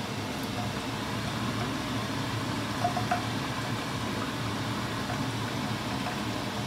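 Steady, even background hiss and hum, with a few faint light clinks about three seconds in.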